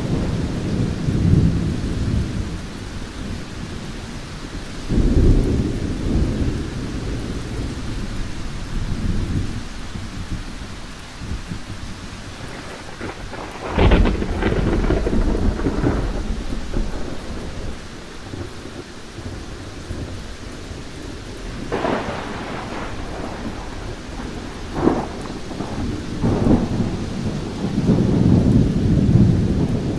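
Thunderstorm: steady rain with repeated deep rolls of thunder. A sharp, loud thunderclap comes about halfway through, and the rumbling builds again near the end.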